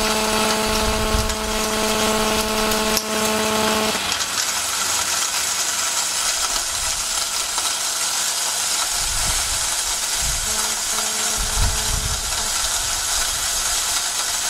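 Electric laboratory disc pulverizer running, its ceramic discs grinding graphite ore fed through a plugged hopper. A steady hum drops out about four seconds in, leaving a hissing grinding noise.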